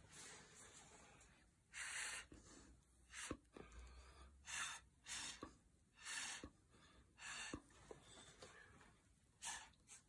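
Soft, short puffs of breath blown through a straw onto wet acrylic paint, about six of them, a second or two apart.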